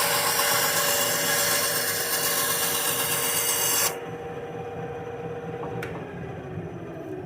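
Harbor Freight bench-top bandsaw cutting through a 2x4, a loud rasping cut that stops abruptly about four seconds in as the blade clears the wood. The motor runs on more quietly, then after a click near the end its hum slides down in pitch as the saw is switched off and winds down.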